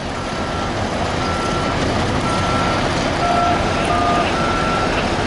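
Backup alarm on heavy cleanup machinery beeping about once a second, over a steady machinery rumble. A second alarm at a lower pitch joins for a couple of beeps a little past halfway.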